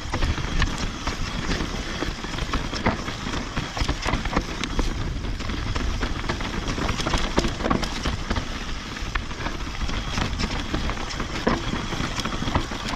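Mountain bike rolling fast down a dry, rocky dirt singletrack: a steady rumble of tyres on dirt and gravel, with frequent sharp clicks and rattles as the bike goes over rocks.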